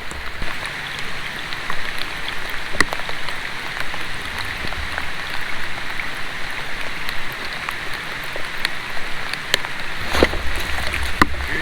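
Steady rain falling, with a few sharp ticks, two of them close together about ten seconds in.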